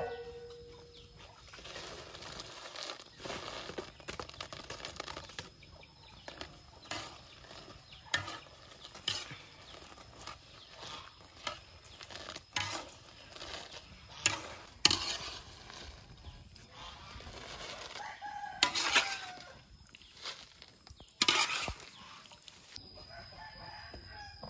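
Rooster crowing, twice in the later part, over scattered clinks and knocks of a wire spider strainer against a steel wok.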